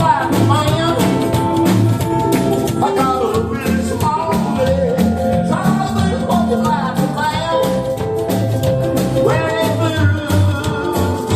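Country band playing live: a steady drum beat and bass line under melodic lines that bend and slide.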